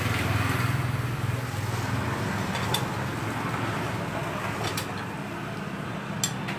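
Steady low hum of motor traffic, with a few short, sharp metal clicks from a long socket bar worked on the engine's bolts.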